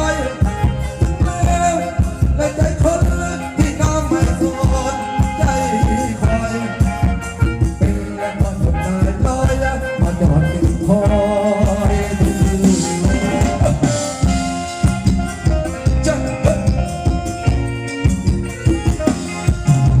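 Live band playing upbeat Thai ramwong dance music, with a drum kit keeping a steady beat under electric guitars, keyboard and a singer.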